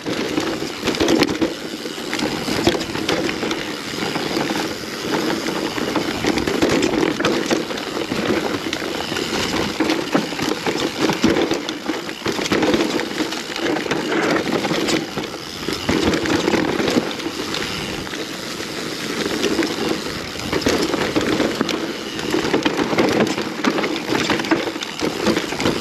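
Mountain bike riding down a rocky, rooty enduro trail. Tyre noise and the rattle of chain and frame run on without a break, with many small knocks as the wheels hit rocks and roots.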